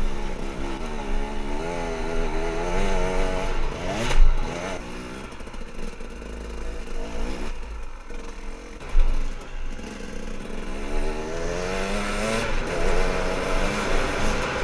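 Husaberg TE300 two-stroke enduro bike engine being ridden hard, revving up and easing off again and again, with a quieter off-throttle spell near the middle. A few loud thumps cut in, about 4 and 9 seconds in and again at the very end.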